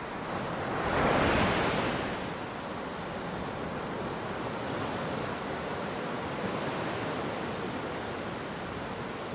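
Ocean surf: a wave breaks, loudest about a second in, then a steady rush of foaming water washing in.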